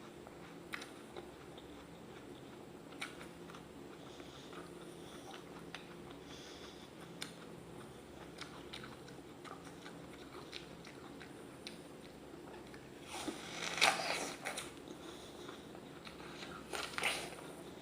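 Raw apple being eaten close to the microphone: quiet chewing with small crunches throughout, and two louder crunching bites, one about three quarters of the way through and one near the end.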